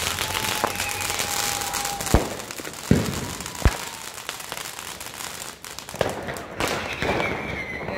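Street fireworks going off. A spark fountain gives a steady crackling hiss, with five sharp firecracker bangs, the loudest about two and three and a half seconds in. There is one long thin whistle at the start and a falling whistle near the end.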